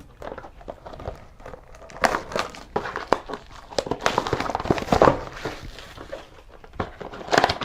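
Cardboard blaster box of Prizm trading cards being opened and handled: irregular rustling and tearing of cardboard with scattered clicks and taps, louder bursts about two, five and seven seconds in.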